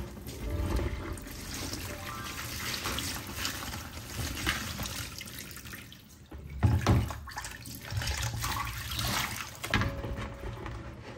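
Cold tap water running over cooked spaghetti in a plastic colander, then draining through the colander and splashing into a plastic bucket below: the pasta is being rinsed to stop the cooking.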